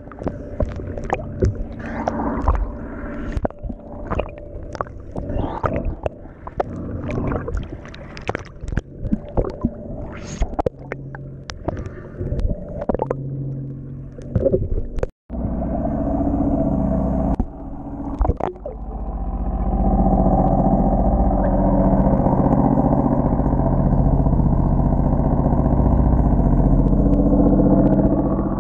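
Water splashing and sloshing around a camera at the surface against a boat hull, a quick run of irregular splashes and knocks. After a short dropout about halfway, it gives way to a muffled, steady underwater rumble as the camera goes under the hull, louder over the last third.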